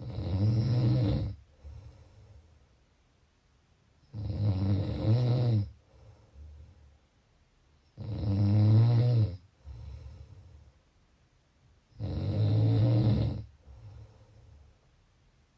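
A sleeping person snoring in a slow, even rhythm: four loud snores about four seconds apart, each followed by a short, softer breath.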